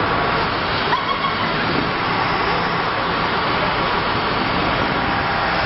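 Steady engine and road noise of heavy vehicles on the move as a recovery truck tows a Wright StreetCar bus, with a taxi passing close by.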